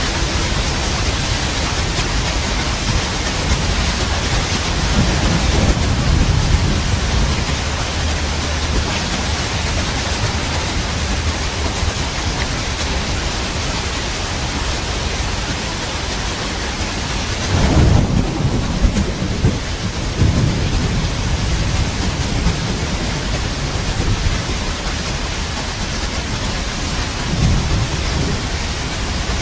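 Steady heavy rain with rolling thunder. The thunder swells several times, loudest as a rumble about 18 seconds in.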